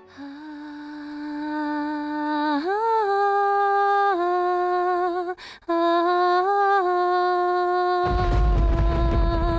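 A single woman's voice sings a slow, wordless melody in long held notes, rising briefly twice and pausing for a breath about five and a half seconds in. From about eight seconds a low rumbling noise comes in beneath the voice.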